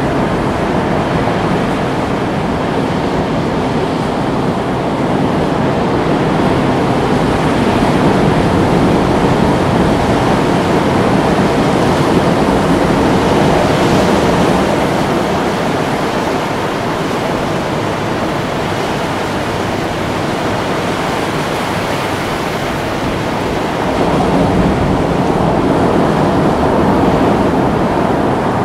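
Ocean surf rushing on the shore, a steady wash that swells twice, once about a third of the way in and again near the end.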